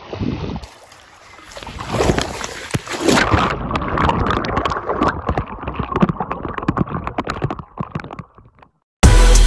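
River water splashing and sloshing around a person who has slipped into it and is struggling, with gurgling from the water around the camera. The splashing breaks off shortly before the end.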